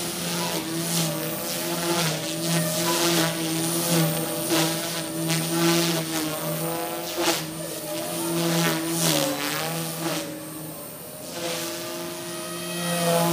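OXY 2 Pro 215 electric RC helicopter in flight: its main rotor blades and brushless motor hum at a high head speed, with swelling whooshes and a pitch that dips and rises as it manoeuvres.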